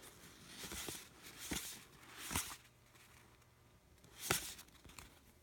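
Basketball trading cards handled by hand: a handful of short, soft flicks and slides of card stock as the cards are flipped through one by one, the loudest about four seconds in.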